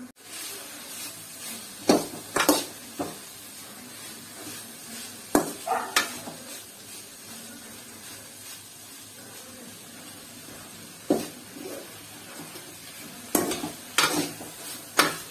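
Shredded dried fish frying in a metal kadai with a steady sizzle, while a metal ladle stirs it and knocks and scrapes against the pan in sharp clinks. The clinks come in short clusters, a few near the start, a couple midway and several near the end.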